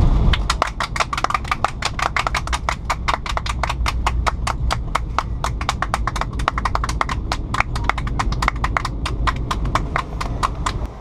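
A group of airliner passengers clapping their hands together in a quick, even rhythm, over the steady low drone of the aircraft cabin.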